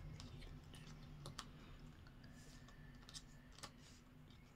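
Faint, scattered clicks and taps of cardboard jigsaw puzzle pieces being handled and pressed into place on the puzzle, over a low steady hum.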